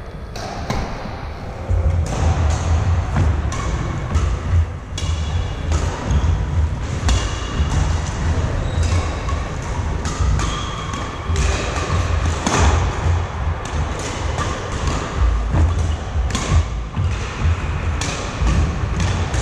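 Badminton rally on a wooden court: rackets hit the shuttlecock in sharp, repeated clicks, with heavy thudding footsteps and short shoe squeaks between the strokes.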